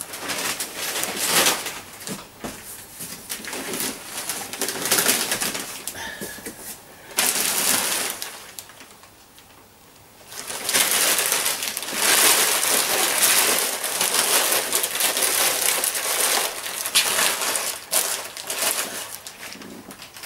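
Gift wrapping paper rustling and crackling as it is pulled off a large cardboard box and crumpled into a ball, with a quieter lull about eight seconds in.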